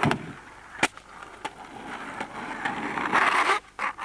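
Skateboard on asphalt and a wooden box: a heavy clack right at the start, a sharp snap a little under a second in, and a few lighter clicks after. A louder rush of noise comes about three seconds in.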